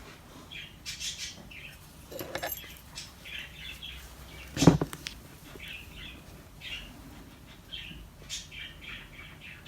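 A small bird chirping repeatedly in short calls, with one sharp knock just under halfway through.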